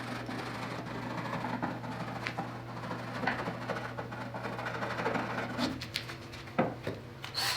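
Chisel scraping and prying loose bark off the live edge of a black walnut slab: irregular light scrapes and small clicks, over a steady low hum.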